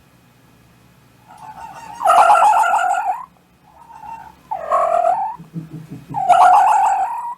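An animal calling three times, each call about a second long with a wavering pitch.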